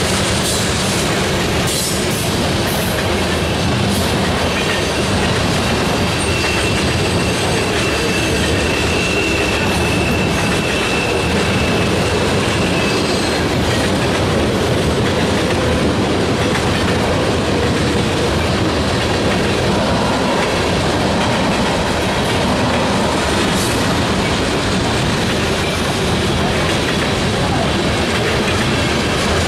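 Freight cars of a manifest train, tank cars and covered hoppers, rolling past at steady speed: a continuous rolling rumble with occasional wheel clicks over the rail joints. A faint high-pitched wheel squeal rises above it for several seconds in the first half.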